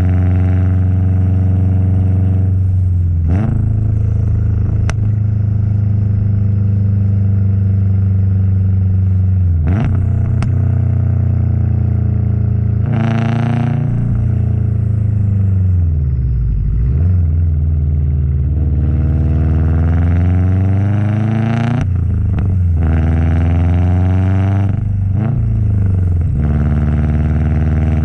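Subaru WRX STi's turbocharged flat-four accelerating through the gears. The engine note climbs in pitch, then drops sharply at each of about six shifts or lifts. Short bursts of turbo flutter and hiss come on several of the lifts, the biggest about halfway through.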